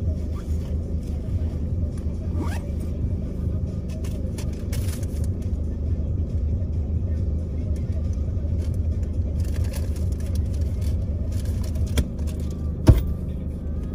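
Car engine idling, heard from inside the cabin as a steady low rumble, with music playing underneath. A single sharp knock sounds near the end.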